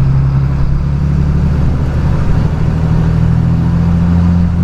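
Cummins 8.3 inline-six turbo diesel of a loaded straight truck pulling under load, heard inside the cab as a steady low drone while the turbo builds boost to about 27 PSI.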